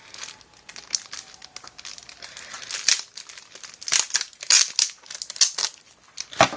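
Plastic packaging crinkling and rustling as it is handled, with a dense run of sharper crackles about four to six seconds in.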